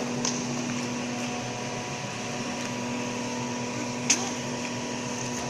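Popcorn machine running with a steady hum, with one sharp click about four seconds in.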